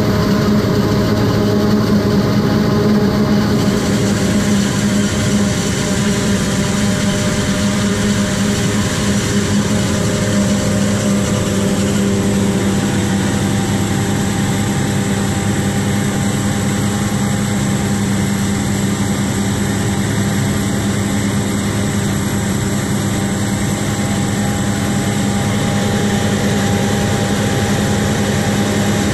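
John Deere 7400 self-propelled forage harvester chopping maize, its diesel engine running at a steady speed with a constant heavy drone and a broad rushing noise over it.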